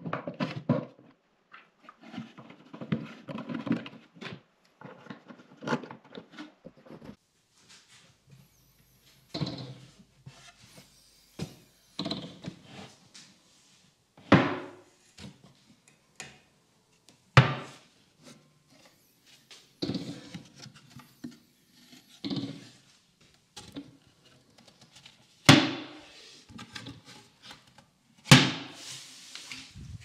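Knocks and thunks of a plywood cabinet and its lid being handled, the lid swung open and shut on its gas lift strut, with small clatter in between. Four louder sharp knocks stand out in the second half.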